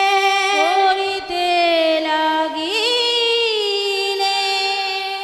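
A woman singing a long drawn-out kirtan line in a sustained melisma over a steady drone. Her voice swoops up into a held note about half a second in and again near three seconds in.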